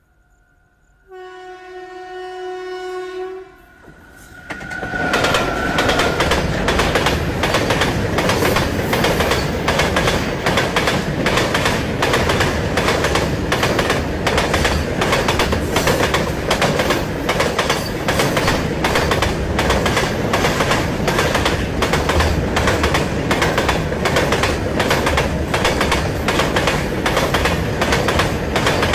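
A train horn sounds one steady blast of about two and a half seconds. Then a train passes close by, its wheels clattering in a fast, regular clickety-clack over the rail joints.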